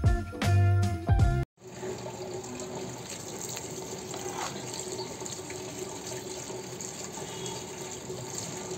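Background music with a beat that cuts off about a second and a half in, then water running steadily from a tap.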